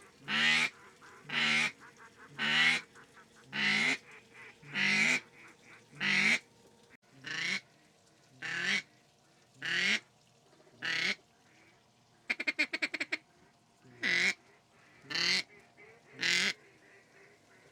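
Mallard-style duck call blown by a hunter: a steady series of loud quacks, one about every second, broken by a quick run of feeding chatter about twelve seconds in, then three more quacks. It is calling to a flock circling back toward the decoys.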